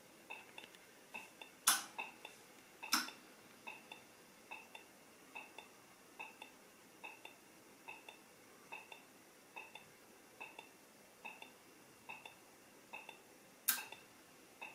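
SWARCO Touch Sound ASLTC-R/Type4 pedestrian push button giving its orientation ticking: short double beeps repeating about once a second, which help blind pedestrians find the button while a crossing request is pending. Three louder sharp clicks stand out, two in the first few seconds and one near the end.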